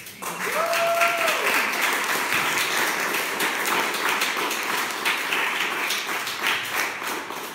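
Audience applause that starts suddenly and runs steadily, easing off near the end. About a second in, one person gives a short held whoop that rises and then falls.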